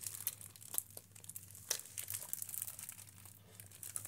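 Clear plastic film wrapper crinkling in irregular crackles as a wrapped piece of pizza bread is handled.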